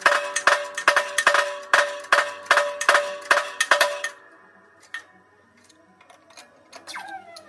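Hydraulic shop press pressing a bearing race into a GM 4104 bus front hub, with the sound sped up in time lapse. A quick run of sharp metallic clicks, about two and a half a second, leaves the steel hub ringing like a bell; the clicks stop about four seconds in. Near the end comes a ringing tone that falls in pitch.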